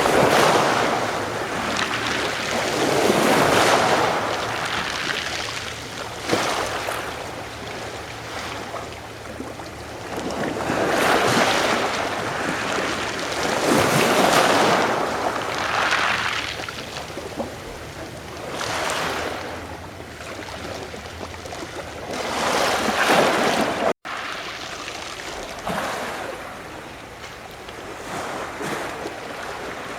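Adriatic Sea waves washing onto the shore, one swell after another every two to three seconds. The sound cuts out for an instant about two-thirds of the way through.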